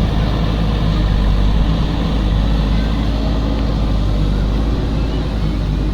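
JCB 3DX Super backhoe loader's diesel engine running steadily with a deep, loud rumble, easing off slightly near the end.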